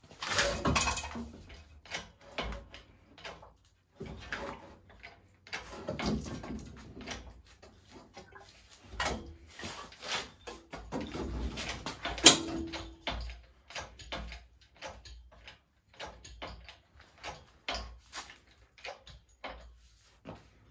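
Irregular metal clunks, clicks and creaks of an engine being hoisted out of a van's engine bay on an engine hoist, with one sharp clank about twelve seconds in that rings briefly.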